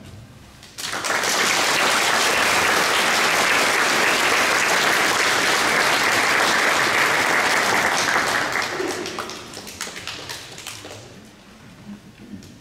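Audience applauding: the applause breaks out about a second in, holds steady and full, then thins into scattered claps and dies away near the end.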